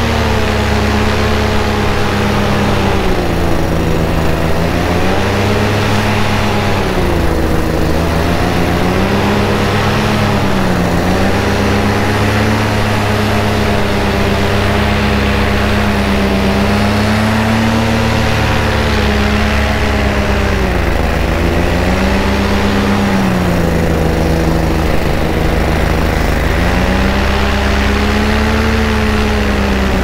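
Paramotor engine and propeller running close to the microphone, its pitch dipping and rising again every few seconds as the throttle is eased and opened, over steady wind rush.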